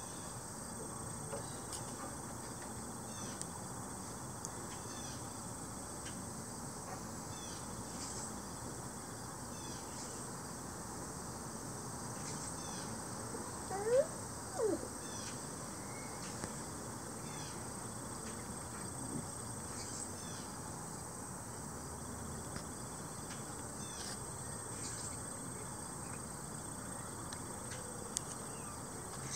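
Outdoor background with a steady high-pitched whine and short high chirps every second or so. About halfway there are two brief pitched calls, the first rising and the second falling, and these are the loudest sounds.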